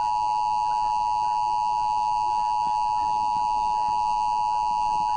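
Emergency Alert System attention signal: a steady, unbroken two-tone alert tone sounding ahead of a tornado warning broadcast.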